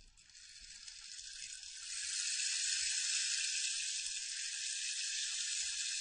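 A steady high hiss that swells over the first two seconds and then holds at an even level.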